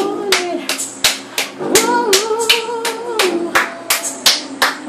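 A woman singing an R&B-style ballad unaccompanied, holding one long wavering note in the middle, over hand claps keeping a steady beat of about three claps a second.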